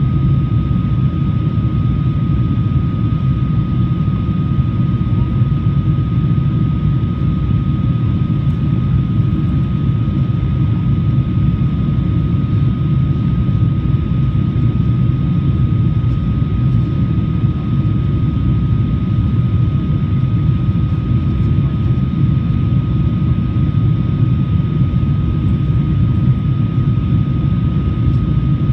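Steady cabin noise inside a Boeing 777-200 in flight: a deep, even rumble of engines and rushing air, with a thin steady tone above it.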